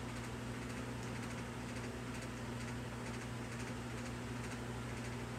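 Room tone: a steady low electrical hum over faint hiss, with no distinct event.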